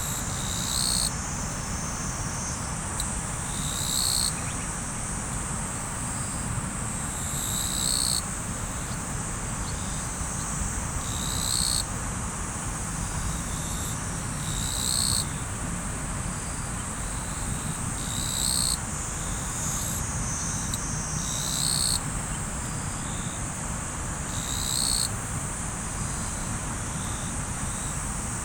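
River water flowing steadily under a continuous high insect trill. A short high call repeats about every three and a half seconds.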